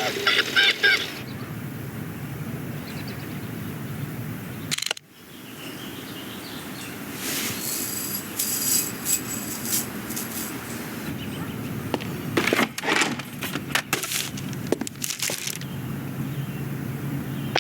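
Film sound-effects track: steady room ambience with scattered Foley clicks, knocks and light clatters, coming in two clusters in the second half. The ambience cuts out abruptly about five seconds in, then fades back.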